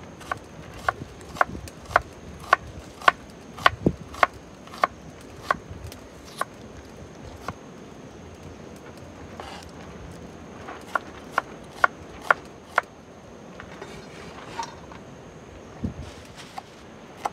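Cleaver chopping onion on a plastic cutting board: sharp knocks about two a second, a pause of a few seconds, then a second short run of strokes. Near the end the sliced onion is scraped off the board into a steel plate with the blade.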